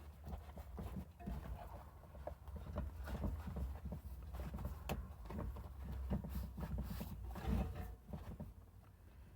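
Bicycle inner tube being fed by hand into the tyre on the wheel rim: irregular soft taps, knocks and rubbing of rubber against the tyre and rim.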